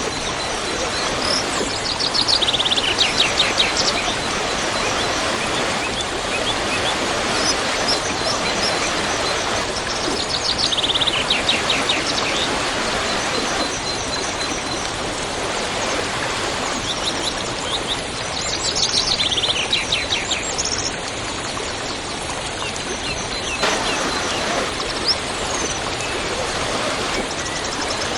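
Waterfall rushing steadily, with a songbird singing over it: three times a quick series of high notes runs downward in pitch, each lasting one to two seconds.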